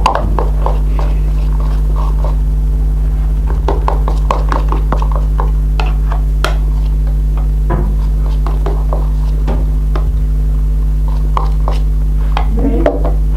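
Hands kneading and stretching freshly made borax slime: scattered small sticky clicks and squelches over a steady electrical hum.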